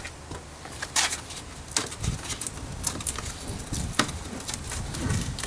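Hands working at a car's inner door panel: a few sharp clicks and low rustling, handling noise as the sealed plastic moisture barrier is pulled back from the door.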